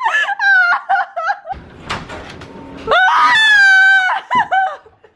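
A woman's hysterical, high-pitched shrieking laughter in cackling bursts, with a long held squeal about three seconds in. In the middle the laughter drops off into a short spell of scuffling with one sharp knock.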